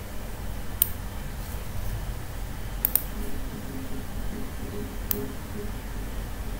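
A few sharp computer-mouse clicks: one about a second in, a quick double click near three seconds, and another about five seconds in, over a steady low hum.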